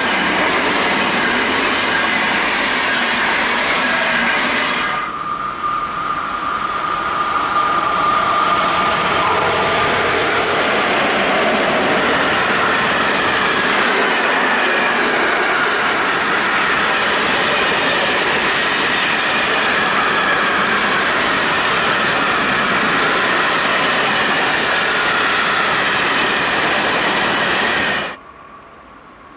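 Train passing close by, a loud steady rolling rush of wheels on rails with thin high squealing tones. The sound dips briefly about five seconds in and cuts off sharply near the end to a much quieter background.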